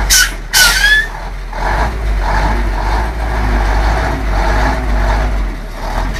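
Ural 4320 army truck's diesel engine running steadily under load as the truck crawls down into a deep trench. In the first second there is a short loud hiss with a squeal.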